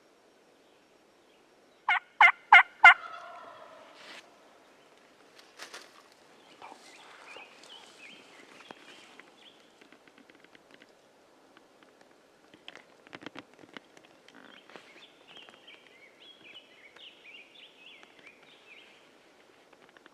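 Wild turkeys: four loud yelps close by about two seconds in, then a turkey gobbling farther off, a rapid rattling call heard twice, near the middle and again toward the end.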